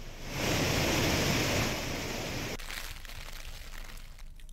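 Floodwater rushing over a dam spillway: a steady rush of churning water that swells in the first half second, eases after about a second and a half, and cuts off abruptly about two and a half seconds in.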